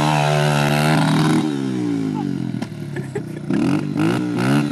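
Dirt bike engine revving hard and held high for about a second and a half as the rear wheel spins in loose dirt, then dropping off. Near the end the revs rise and fall again in quick blips.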